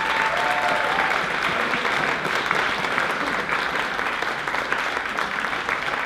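Audience applauding: many hands clapping at an even, steady level.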